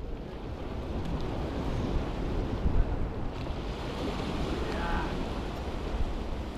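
Sea waves washing against and breaking on the boulders of a rock jetty, swelling a few seconds in, with wind buffeting the microphone.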